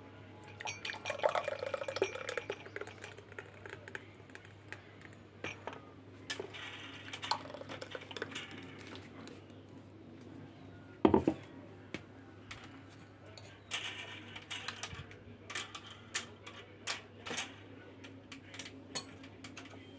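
Thick mango shake poured from a steel mixer jar into glass mugs, in two stretches of pouring. A single loud knock comes about eleven seconds in, followed by a run of small clinks of a steel spoon against the glass mugs as dry fruits are added.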